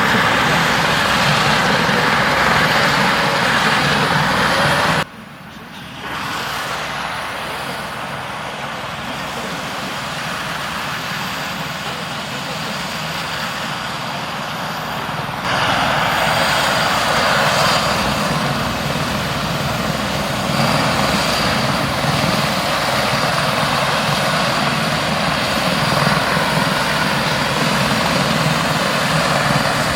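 Air ambulance helicopter running, a loud steady rush of rotor and engine noise. It drops suddenly to a quieter level about five seconds in and comes back up abruptly about halfway through.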